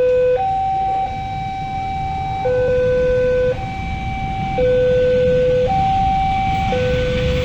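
Railway level-crossing warning alarm sounding. It is an electronic two-tone signal that alternates between a low note and a higher note, each held about a second, warning that a train is approaching. Low road-traffic rumble runs underneath.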